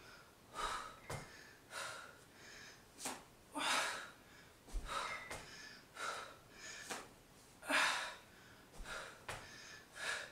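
A woman breathing hard and fast from exertion while exercising, with short hissing breaths about one every half second to a second.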